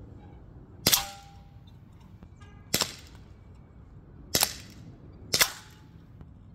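Four sharp cracks about one to two seconds apart: shots from an Umarex Glock 17 Gen3 CO2 blowback BB pistol, with BBs striking the hanging can targets. A short ringing note follows the first crack.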